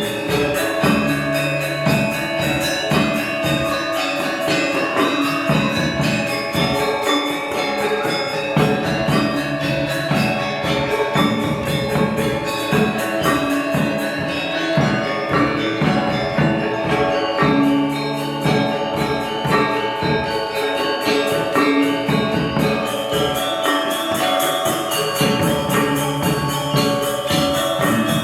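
Balinese gamelan gong ensemble playing: bronze metallophones and gongs in a dense, steady texture over a rapid, even clashing of ceng-ceng cymbals.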